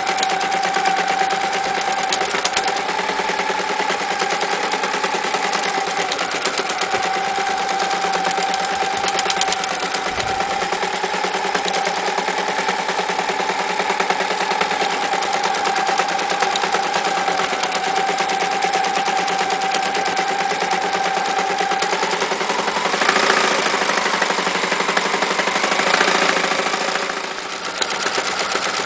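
Frister Rossmann Cub 4 electric sewing machine running at speed, its motor giving a steady whine under the fast rattle of the needle as it stitches through thick denim. About 22 seconds in the sound turns harsher and less steady, and near the end it is stitching through a leather belt, with a brief dip shortly before.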